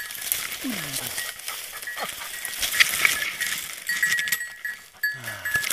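Hunting dog pushing through dry scrub: close rustling and scraping of branches and grass, with a thin metallic jingle coming and going. A few short, low calls that fall in pitch sound about a second in and again near the end.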